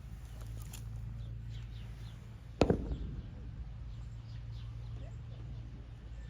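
A single sharp bang about two and a half seconds in, over a steady low rumble, with faint bird chirps afterwards.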